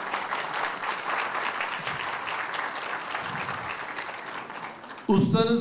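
Audience applauding, a dense patter of many hands clapping that thins out toward the end. A man's voice comes in about five seconds in.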